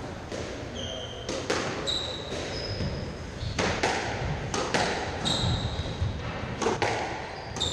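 Squash ball being struck by rackets and hitting the court walls during a rally: sharp hits that mostly come in quick pairs every second or two. Trainers squeak briefly on the wooden court floor between shots.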